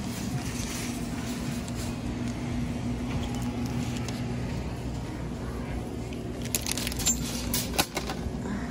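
Steady background hum of a supermarket, with a short run of sharp clicks and rattles about six to eight seconds in.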